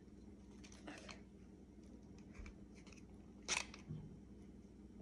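Faint clicks and small knocks of a BB pistol being handled and worked by hand. The sharpest click comes about three and a half seconds in.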